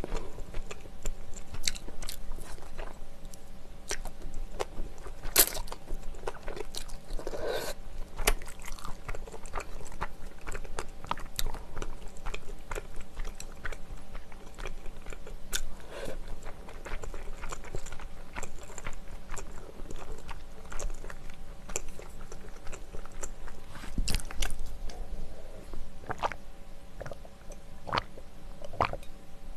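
Close-miked chewing and slurping of malaxiangguo, spicy stir-fried Chinese glass noodles and seafood, with many small wet mouth clicks and smacks. A low thump about 24 s in, and a drink from a mug near the end.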